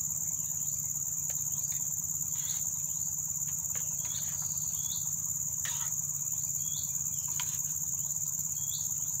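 Steady, high-pitched insect chirring from the surrounding grass, with a few faint clicks of a metal spoon stirring in a small metal pot.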